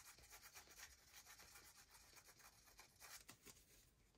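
Faint, irregular scratching of a glue bottle's nozzle rubbing along the edge of cardstock as a line of glue is laid down, thinning out near the end.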